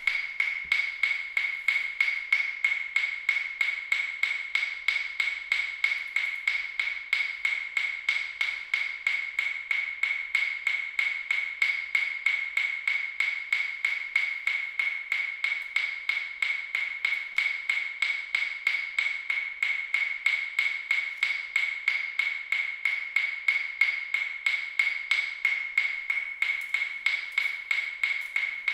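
Fast, evenly spaced ticking that runs on without change, each tick a short high-pitched ping at the same pitch, like a metronome or clock beat.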